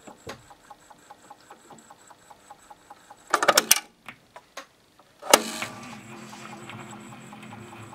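A stylus on a homemade clear plastic disc (a CD-spindle cover) turning on a turntable, with rapid, even ticking. A loud rough burst comes about three and a half seconds in. A sharp click near the middle is followed by a steady hum with a few held tones.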